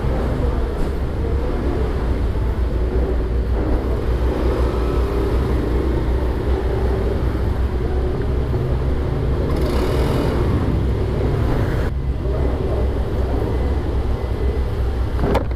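Steady low engine rumble on a ferry's enclosed vehicle deck as motor scooters ride slowly across it and park. A brief hiss about ten seconds in.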